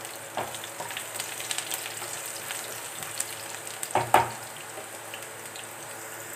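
Chopped garlic and mustard seeds sizzling steadily in hot oil in a metal kadai. A spatula stirs and scrapes the pan about half a second in and again, more loudly, around four seconds in.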